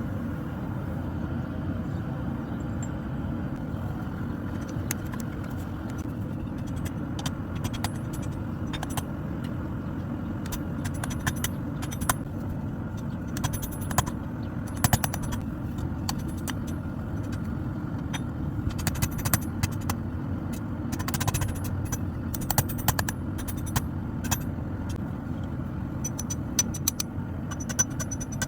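Blacksmith's forge running with a steady low roar, with clusters of sharp metallic clinks and taps from steel being worked.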